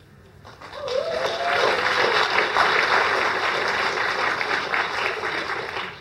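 Audience applauding: dense clapping that swells up about half a second in, holds, and dies away near the end.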